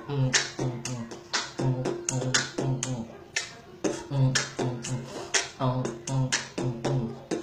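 Human beatboxing: a steady rhythm of sharp, hissy snare-like mouth sounds alternating with short hummed bass notes.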